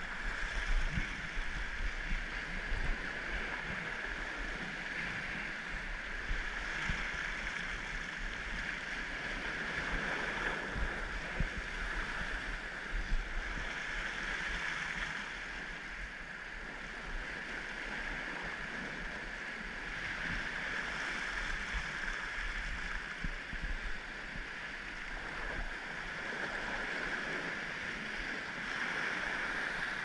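Ocean surf washing and foaming against a rocky shoreline, swelling and easing every several seconds, with wind rumbling on the microphone.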